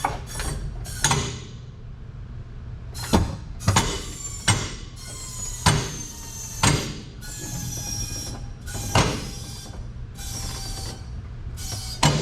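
Sharp metal clanks that each ring briefly, about nine in all at irregular gaps of half a second to two seconds, from raising the car with a jack. A steady low hum runs underneath.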